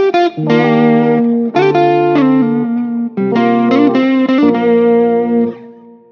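Background music: guitar chords played through effects, fading out near the end.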